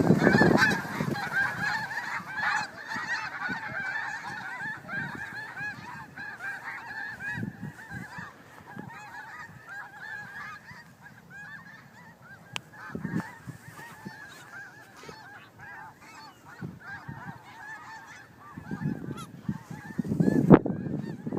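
A flock of snow geese honking together as they take flight. The many overlapping calls are loudest at the start and thin out and fade over about ten seconds as the flock flies off. Low rumbling bursts come at the start and again near the end.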